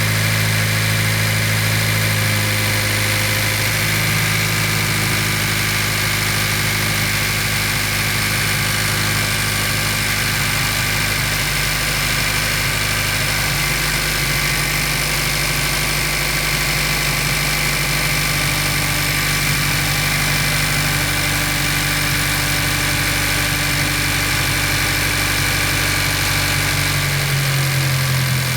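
Car engine idling steadily, its low note shifting slightly a few times.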